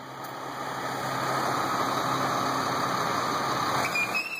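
A vehicle engine running steadily, growing louder over the first two seconds, as a sedan is brought up to the tilted ramp of a flatbed tow truck. A brief high squeal about four seconds in.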